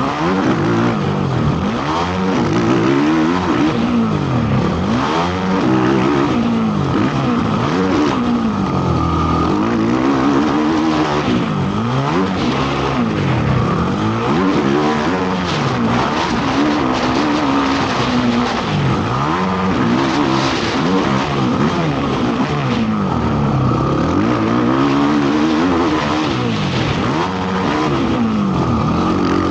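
Racing ATV engine being ridden hard around a motocross track, revving up and backing off again and again, its pitch climbing and falling every second or two.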